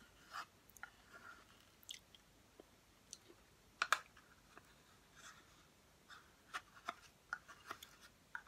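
Quiet eating sounds: soft mouth smacks from pudding eaten off a metal spoon, with scattered clicks of the spoon against the plastic pudding cup, the sharpest a quick double click about four seconds in.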